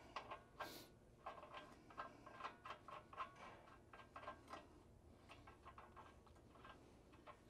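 Faint, irregular metallic clicking and ticking as a large nut is spun down by hand onto a big washer on a threaded steel spindle, several small clicks a second.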